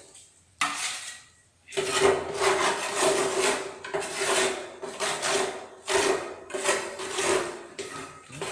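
Rasping, scraping strokes in a steady back-and-forth rhythm, about one every 0.7 s, from hand work on the construction site. There is a short lull with a single click at the start before the strokes begin.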